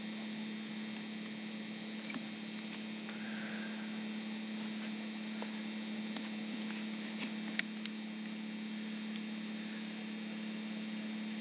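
A steady electrical hum in an old camcorder recording, with a weaker tone above it and a few faint clicks.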